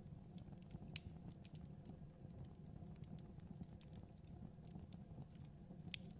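Fire burning in a fireplace: a soft low rumble with scattered crackles and pops, two of them sharper, about a second in and near the end.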